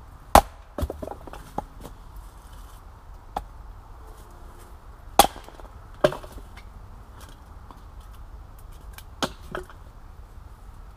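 Small axe chopping into a log on a wooden chopping stump: sharp, irregular chops of the blade biting the wood. The loudest come about half a second in and around five and six seconds in, with lighter knocks between them and two more strikes near the nine-second mark.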